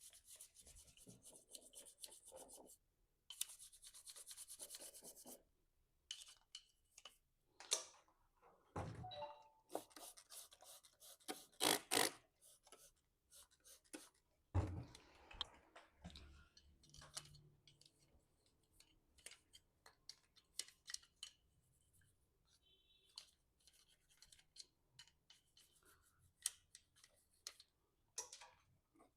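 An ink-tank fitting from a flex printer being scrubbed clean with a brush: quick rapid strokes in two spells during the first five seconds. Scattered clicks and knocks of the parts being handled follow.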